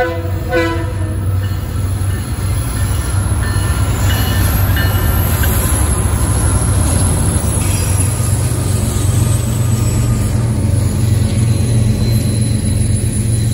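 Diesel-hauled freight train passing close by: the locomotives' engines give a steady low drone under the rumble of the wheels on the rails. Faint high wheel squeal comes in now and then a few seconds in.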